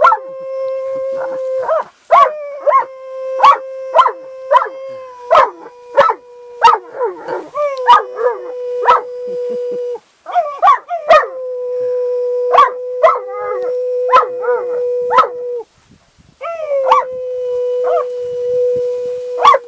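An Irish wolfhound and a man howling together. Long howls are held on one steady pitch and break off and start again a few times, and short yelping barks come about once or twice a second over them.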